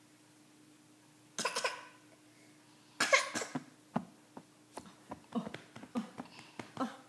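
A toddler coughing twice, about one and a half and three seconds in, the second cough louder, followed by a run of short clicks and taps.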